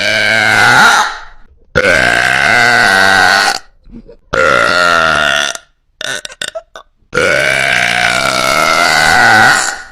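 A woman's very loud, long burps one after another: the end of one, then three more, each lasting from over a second to nearly three seconds. There are a few short clicks before the last one.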